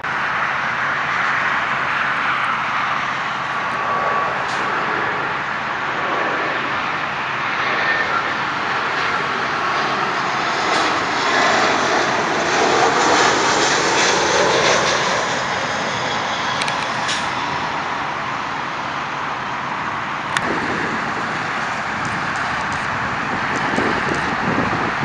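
Jet airliner passing overhead on its landing approach, a steady engine roar that grows loudest about halfway through and then eases off.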